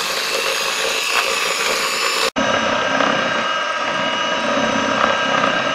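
Electric hand mixer running steadily, its beaters whirring through strawberry cream-cheese filling in a stainless steel bowl. The sound cuts out for an instant about two seconds in, then carries on.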